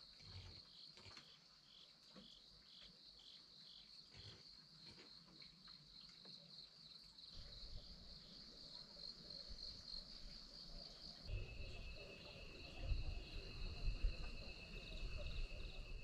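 Insects trilling steadily at a high pitch, joined by a second, lower steady trill about eleven seconds in. A low rumble with a few dull thumps rises toward the end.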